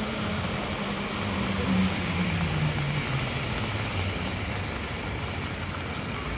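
Steady hiss of heavy rain and traffic on a wet city street, with a low vehicle engine hum that drops in pitch between about two and three seconds in.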